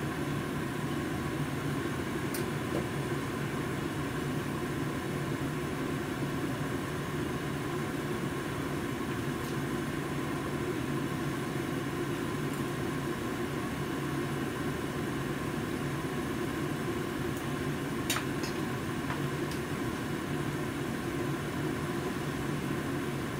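Steady hum and hiss of a lit gas stove burner heating a lidded steel pot of soup, with a light click about 18 seconds in.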